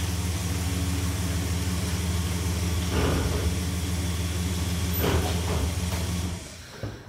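2000 Dodge Ram pickup's engine running at low speed as the truck rolls slowly forward, with two brief swells of noise about three and five seconds in. The engine is switched off a little over six seconds in.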